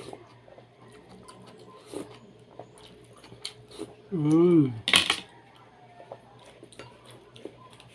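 Cutlery clicking and clinking against a plate while eating, in many small sharp taps. About four seconds in comes a short wavering hum from the eater, followed at once by one louder, bright clink.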